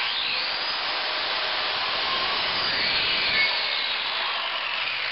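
Circular saw running and crosscutting half-inch MDF, the blade cutting through the top board and scoring the one beneath. The motor's whine sags and recovers partway through the cut.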